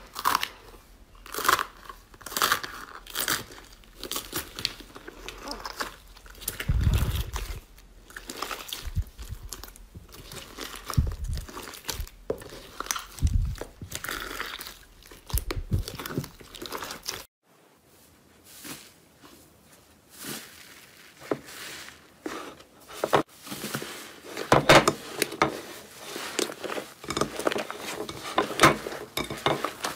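Hands kneading and pressing slime studded with foam beads: many short sticky crackles and pops, with a few low thuds in the first half. About 17 s in, after a brief gap, a thick green slime is stretched and squeezed, with more dense crackling.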